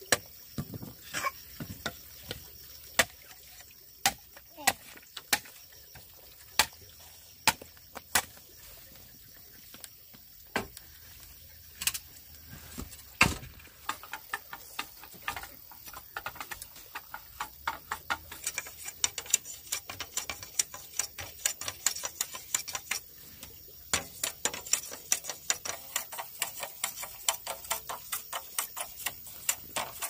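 Machete chopping green bamboo: sharp, irregular knocks, coming faster in the second half.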